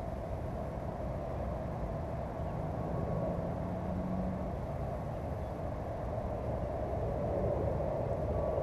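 Steady low background rumble with no distinct events, outdoor ambient noise on the camera's microphone.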